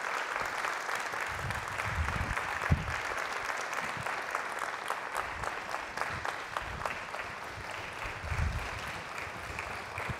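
Audience applauding steadily, many hands clapping at once, easing off slightly near the end.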